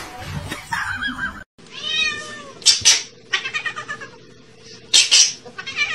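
Domestic cat meowing and yowling: a drawn-out call that rises and falls, then several shorter, harsher cries, with a brief break about a second and a half in.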